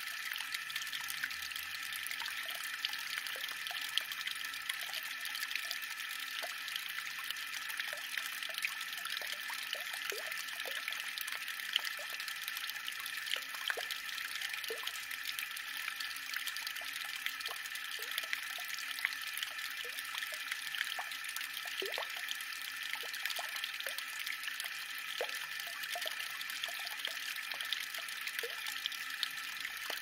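Small village fountain: water splashing and trickling steadily, with many small drips plinking through it.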